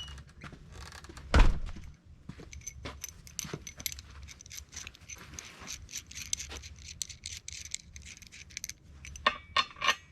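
Small metal clinks and rattles of mounting bolts and hardware being handled while a bench vise is bolted onto a steel stand, with one heavy metal clunk about a second and a half in and a few sharper clanks near the end.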